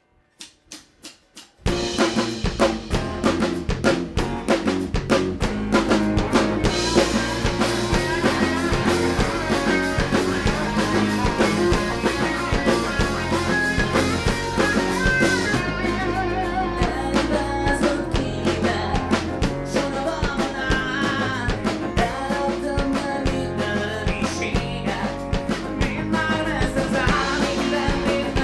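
Live band starting a song: a few evenly spaced clicks of a count-in, then the full band comes in about two seconds in, with drum kit, bass and guitar playing steadily.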